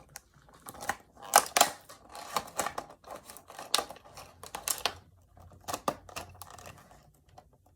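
Toy car packaging being worked open by hand: a run of plastic crackles and sharp clicks, loudest about a second and a half in.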